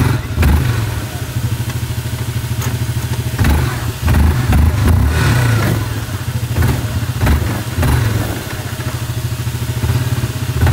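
ATV engine running and revving in repeated bursts with a few knocks, as the quad sits high-centered on a log and the rider tries to drive it off.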